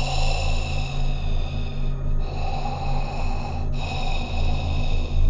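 Heavy, rhythmic breathing over a steady low drone, each breath lasting about one and a half to two seconds with a short break between.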